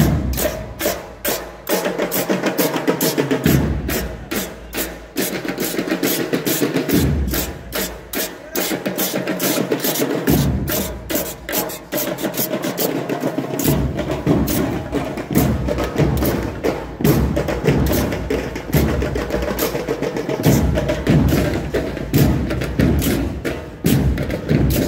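School marching band's percussion section playing a fast march rhythm: dense, sharp strikes of hand-held metal percussion beaten with sticks over heavy bass drum beats, which drop out for a few seconds at a time.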